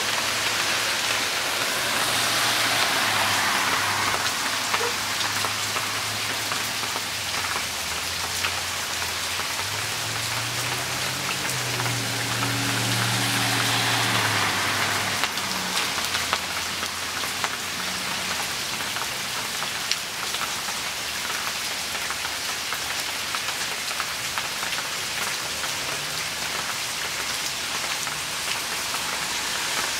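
Steady rain falling on grass and bare soil, an even hiss made of countless small drop impacts. A low hum sits underneath during roughly the first half.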